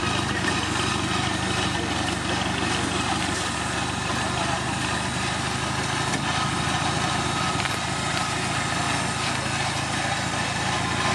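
A vehicle engine running steadily at an even pitch, without revving.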